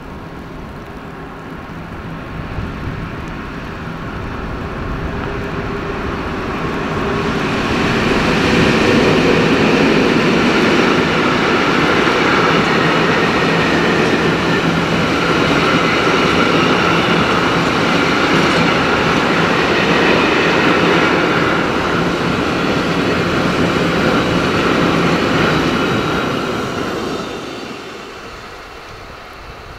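Two Ludmilla-class diesel locomotives, a BR 232 and a BR 132, pass with a long train of tank wagons. The locomotives' engine drone grows louder over the first several seconds. Then the wagons roll past with a steady wheel rumble that falls away near the end.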